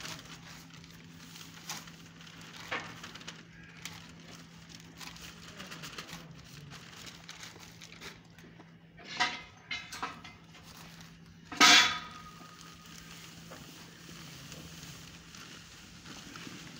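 A plastic sack of earthing powder crackling and rustling as it is handled and tipped into the earth pit, over a faint steady hum. Two short sounds come a little past the middle, then a brief loud sharp sound about two-thirds through.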